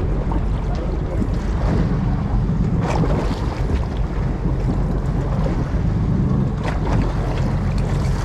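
Wind buffeting the microphone on a boat at sea over a steady low engine hum and water washing against the hull. There are a couple of brief clicks, about three seconds in and again near the end.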